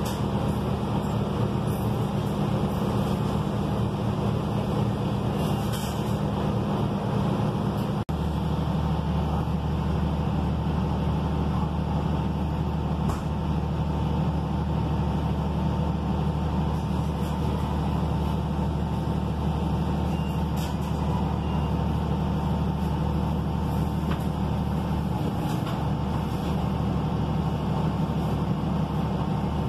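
Cummins ISL9 straight-six diesel engine of a Gillig low-floor bus idling steadily, heard from inside the passenger cabin. A click comes about eight seconds in, and after it the low rumble is stronger.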